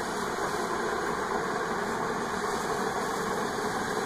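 Steady machine-like hum with no distinct events.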